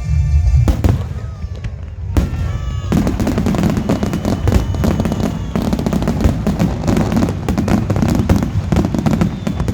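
Fireworks display: a few separate bursts, then from about three seconds in a dense, continuous crackle of many rapid pops.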